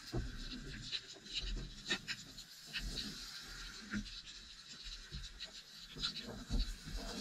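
Underwater sound picked up by a camera held in shallow sea water: a low, uneven sloshing rumble with many small irregular clicks and crackles.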